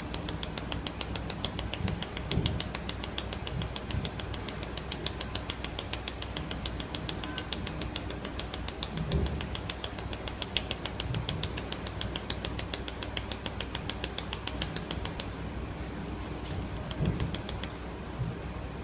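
Pulsed YAG laser welder firing on stainless steel: an even train of sharp clicks, about five a second, one for each laser pulse, that stops about fifteen seconds in and briefly starts again a second later, over the machine's steady hum.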